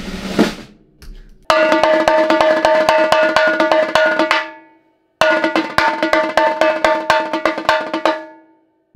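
A drum on a drum kit struck with sticks in two runs of quick, even strokes, about six a second, each run about three seconds long and ringing with a steady pitch. A short knock comes just at the start.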